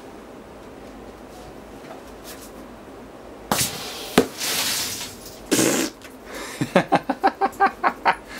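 Vacuum suddenly let go from a sealed double-glazed drink-fridge window: about three and a half seconds in, a loud rush of air with a sharp crack as the glass pops, then hissing for about a second and another short burst.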